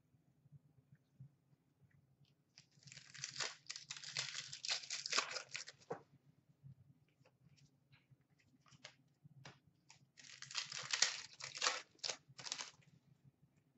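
Panini Contenders hockey card pack wrappers being torn open and crinkled by hand. The sound comes in two bursts of ripping and crinkling, the first about three seconds in and lasting about three seconds, the second about ten seconds in. A few light clicks come in between.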